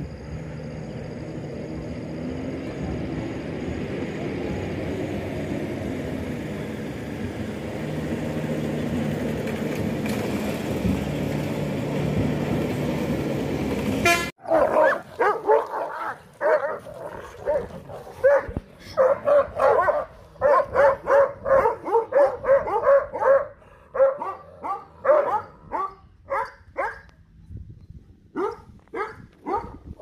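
Several dogs barking rapidly in a scuffle, a few sharp barks a second in quick runs, starting suddenly about halfway through. Before that there is a steady low rumbling noise.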